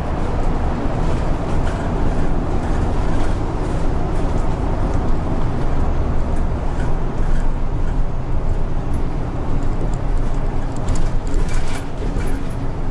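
Isuzu city bus heard from inside the cabin while driving: steady engine and road noise, with a few light clicks and rattles near the end.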